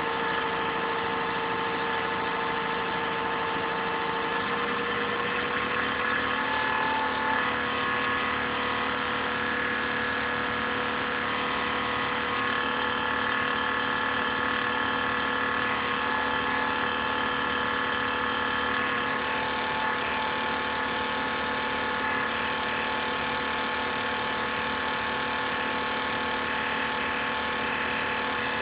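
An INSYS GameForce laptop's cooling fan running with an abnormal, strange noise: a steady whir with several whining tones whose pitch steps slightly a couple of times. It is recorded on a phone and sounds somewhat distorted.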